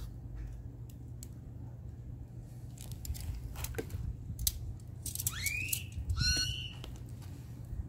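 A bird calls about five seconds in: a rising whistle, then a short ringing note with overtones. Under it runs a steady low hum with a few scattered sharp clicks.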